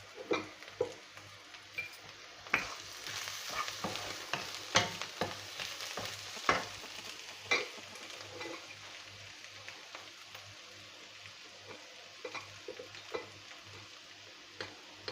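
A utensil stirring mashed potato with fried onion and green chilli in a pot of hot oil, over a light sizzle of frying. Irregular knocks and scrapes against the pot are frequent in the first half and sparser after that.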